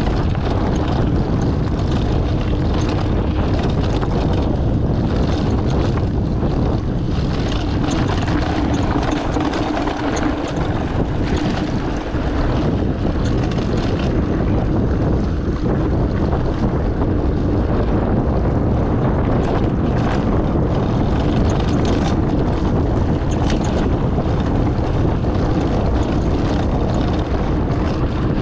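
Wind buffeting the microphone and tyres rolling over a rough dirt and stone track as a mountain bike descends at speed, with scattered knocks and rattles from the bike over bumps.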